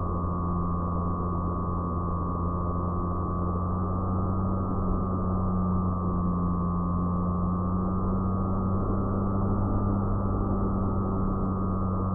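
Electric motor and propeller of an FPV fixed-wing plane heard from its onboard camera: a steady high whine over a low drone and wind rush, the whine's pitch rising a little a few seconds in and again later.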